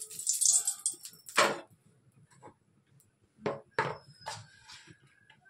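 Hot oil sizzling in an aluminium kadai and dying away in the first second or so, then several separate knocks and clinks of a wooden spatula and utensils against the pan.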